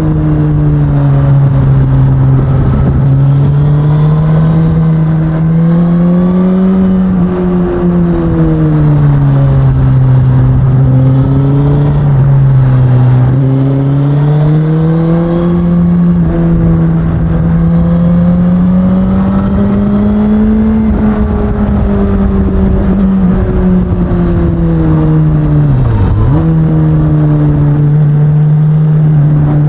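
Stock 2019 Suzuki Katana's 999 cc inline-four engine running under way through its standard exhaust, the engine speed rising and falling smoothly with the throttle. Near the end there is a brief sharp drop in revs.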